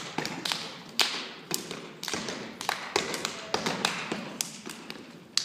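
Dancers' feet stamping and tapping on a stage floor, sharp irregular hits about two or three a second with a short ring after each, with no music behind them.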